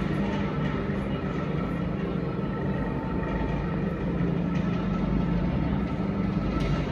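Roundhouse turntable turning with a Class 03 diesel shunter on it: a steady low mechanical hum and rumble that keeps an even level.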